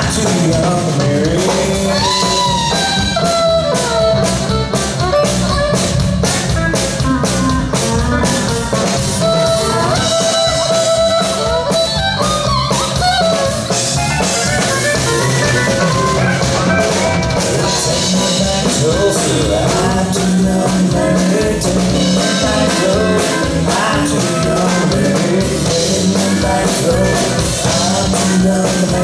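Band playing an instrumental break of a western swing song, with a steady drum beat under a melodic lead line and no singing.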